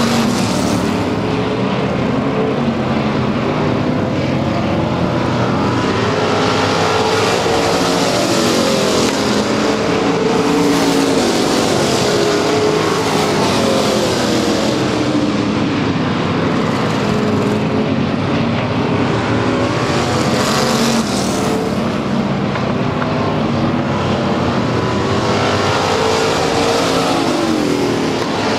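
Dirt-track race car engines running laps around the oval, their pitch rising and falling again and again as the cars accelerate and lift through the corners. The sound turns brighter twice, as the cars come past nearest.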